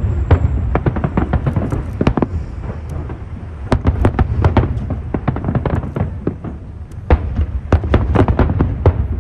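Fireworks display: many shells bursting in quick succession, sharp bangs over a steady low rumble, busiest near the start, around the middle and again near the end.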